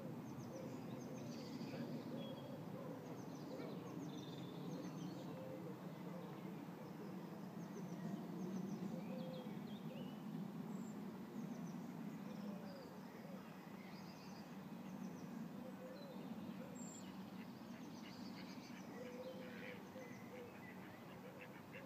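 Outdoor birdsong: scattered short chirps and calls from small birds, with waterfowl calling now and then, over a low steady rumble. Near the end a bird gives a fast, rattling chatter.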